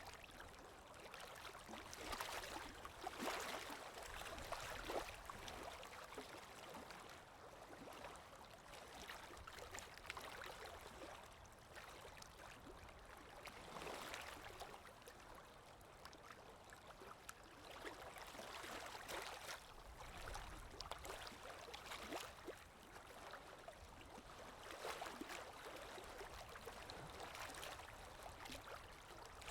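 Small lake waves breaking and washing onto the shore, a quiet steady wash that swells every few seconds.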